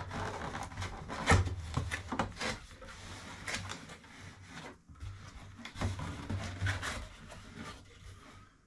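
Cardboard packaging of a helmet box being handled: irregular rubbing and sliding of cardboard with scattered light taps, and one sharper knock about a second and a half in.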